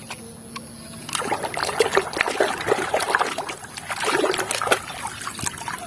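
Water trickling and splashing with small clicks and scrapes as a toy vehicle is washed by hand, starting about a second in.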